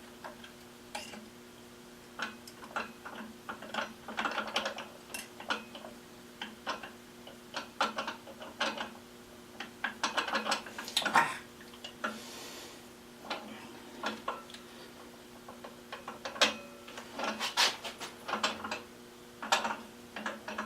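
Irregular metallic clicks, clinks and clanks of hand work on a milling-machine rotary table being re-indexed to a gear tooth, with its index pin and locking bolt handled. A steady low hum runs underneath, and there is a brief hiss about two-thirds of the way in.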